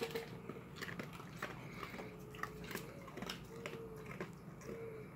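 Dogs chewing dry kibble: faint, irregular crunches and clicks.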